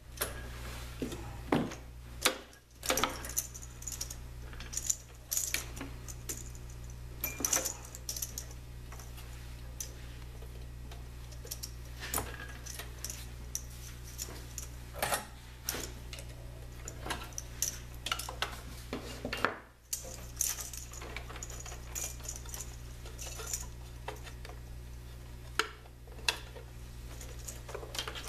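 Irregular clicks and light metallic clinks as wire connectors and small parts inside a Saeco Magic Deluxe espresso machine are handled and unplugged to take out the boiler, over a steady low hum.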